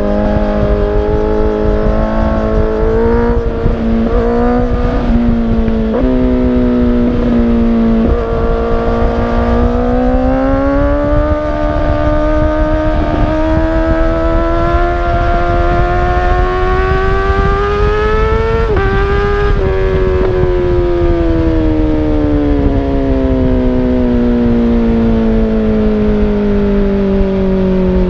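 2017 Honda CBR1000RR Fireblade's inline-four engine through a Toce Performance Razor Tip aftermarket exhaust, under way on the road. The note shifts up and down a little in the first several seconds, then rises steadily for about ten seconds under acceleration. It dips briefly about two-thirds of the way through and then falls slowly as the bike slows.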